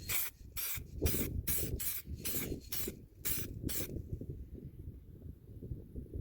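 Aerosol spray can giving a quick run of short spurts, about nine in four seconds, each a brief hiss, as the nozzle is tried out.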